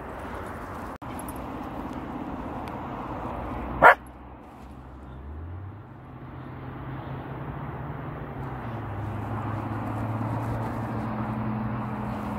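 A border collie barks once, loud and short, about four seconds in.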